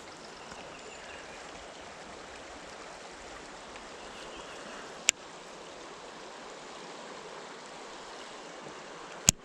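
River water flowing steadily, with two sharp clicks, one about five seconds in and one near the end.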